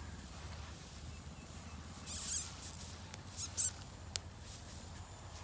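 A mouse squeaking in short, high-pitched bursts, about two seconds in and again twice around three and a half seconds: the distress squeaks of a mouse caught by a dog in the hay. A single sharp click follows near four seconds.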